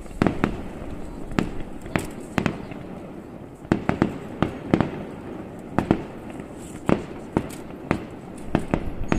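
Fireworks shells bursting in a long irregular series of sharp bangs, often two or three in quick succession.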